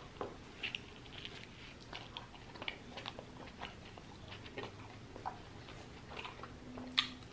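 Close-up mouth sounds of a person biting into and chewing a cheesesteak: soft, wet smacks and clicks scattered irregularly, with a sharper smack near the end.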